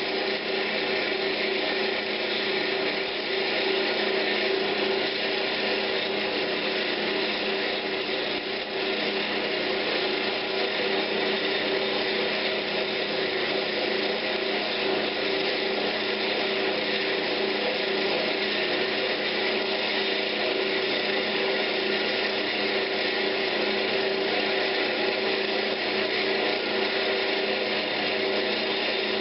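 Wood lathe running steadily while 220-grit sandpaper is held against a spinning pine cabinet knob for the final sanding step: an even sanding hiss over a constant motor hum.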